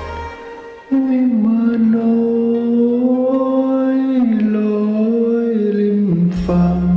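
Thai song sung over a karaoke backing track, with one long held note, bending slightly in pitch, from about a second in until near the end. The bass and accompaniment then come back in under it.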